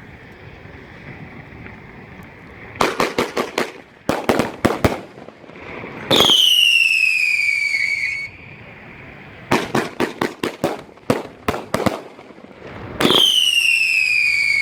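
Alien Fireworks' 'Bite Me' 25-shot 500 g firework cake going off. From about three seconds in, rapid volleys of sharp cracks alternate with two long whistles that fall in pitch. The first whistle comes about six seconds in and the second near the end.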